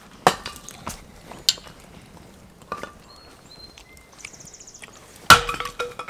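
A series of sharp knocks and clinks, the loudest about five seconds in, with a few short high chirps and a fast trill between them.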